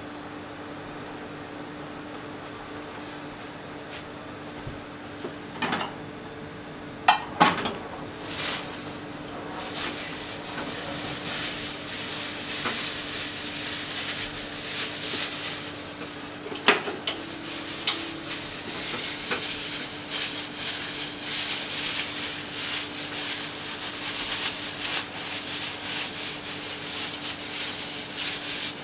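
Cooking oil in a nonstick frying pan on a gas burner starts sizzling about eight seconds in as it heats, with many fine crackles, growing louder over the following seconds. A few sharp clicks come just before the sizzle starts, and a steady low hum runs underneath.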